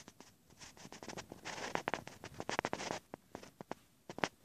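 Tabby cat licking its own fur: a quick run of rasping licks from about half a second in, densest in the middle, then a few single licks near the end.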